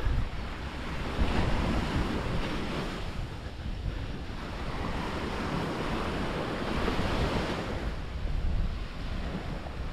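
Sea waves washing in on a pebbly shoreline, swelling a couple of times, with wind buffeting the microphone.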